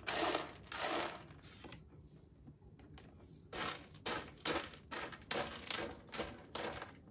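A calico cat scratching and raking pellet cat litter with its paws. There are three scrapes, a pause of over a second, then a quick run of about eight more.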